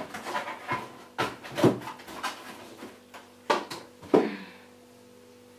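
A string of sharp knocks and rustles from a cardboard box and kitchen items being handled, the loudest about a second and a half in and again about four seconds in.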